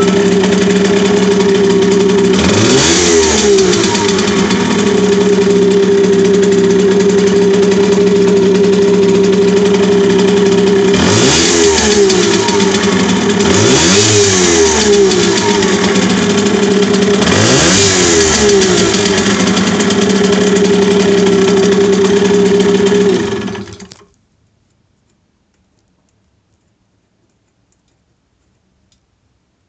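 Simson moped's 50 cc two-stroke single-cylinder engine idling steadily and blipped four times, the pitch rising and falling each time, then stopping about 24 seconds in. The owner thinks the engine makes an odd noise when the throttle is opened.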